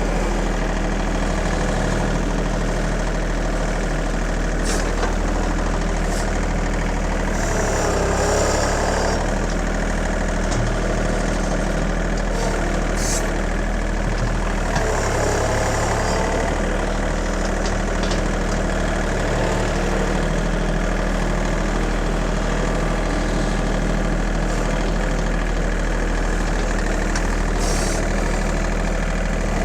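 John Deere 2032R compact tractor's three-cylinder diesel running steadily, with its pitch rising and falling briefly twice as the machine works.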